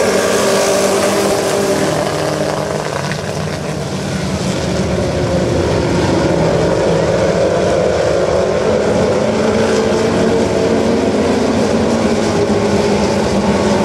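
A pack of Chevette stock cars running together around a dirt oval, several small engines overlapping in a loud, steady mix.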